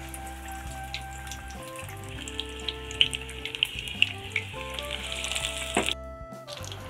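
Battered stuffed chillies (mirchi bajji) frying in hot oil: a steady sizzle with many small crackles, growing louder from about two seconds in. Background music plays under it.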